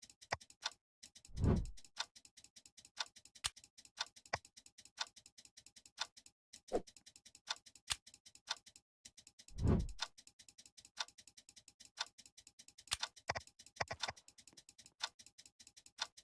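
Clock ticking steadily, about two ticks a second, with a dull low thump twice, once about a second and a half in and once near ten seconds.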